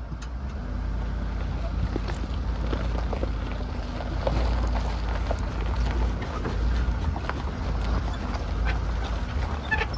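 Boat being loaded onto a trailer at a river ramp: a steady low rumble with scattered knocks and clicks.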